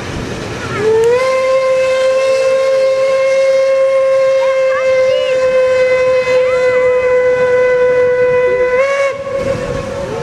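Steam locomotive whistle blown in one long blast of about eight seconds. The pitch slides up as it opens, holds a single steady note, then lifts briefly just before the whistle shuts off.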